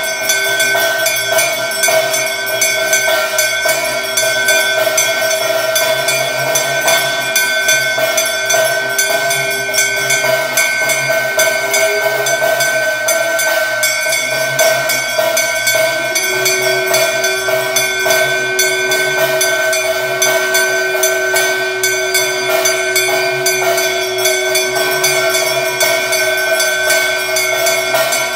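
Temple bells ringing rapidly and continuously during the aarti, their steady ringing tones overlapping, with a lower held tone that breaks off about twelve seconds in and comes back about four seconds later.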